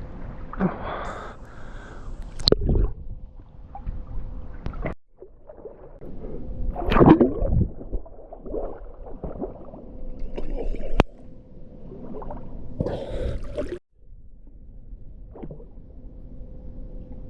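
Lake water splashing and gurgling around a swimmer, in irregular surges. The sound breaks off abruptly twice, about five seconds in and near the end.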